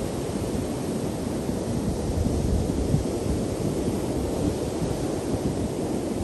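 Ocean surf breaking and washing up a sandy beach, a steady rushing noise that swells and eases, with wind rumbling on the microphone.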